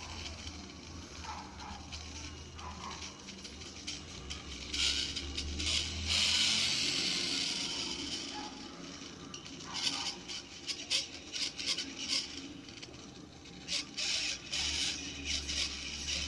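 Turntable stylus riding the groove of a spinning vinyl LP, the record's sound coming thin and hissy straight off the needle, with scattered clicks. The sound swells a few seconds in.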